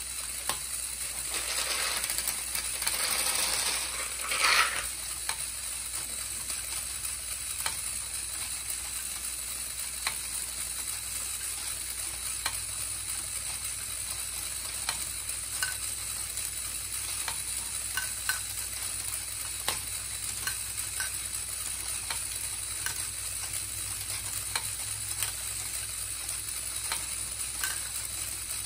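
LEGO Great Ball Contraption module running: its motors drive the chain lift and rotating platform with a steady whir, while small plastic balls click and knock through the mechanism every second or so. A louder clatter of balls rattling in together fills the first few seconds.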